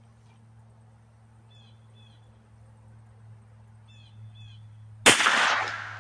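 A single gunshot about five seconds in, with a sharp crack that rings out over most of a second: a 9mm round fired from a single-shot shotgun through a 9mm chamber adapter. Before it, a bird gives two pairs of short calls.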